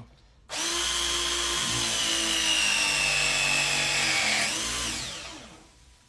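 Cordless Milwaukee pipe press tool running as it crimps a fitting on a washing machine valve. Its motor whine starts about half a second in and slowly drops in pitch under load for about four seconds, then winds down.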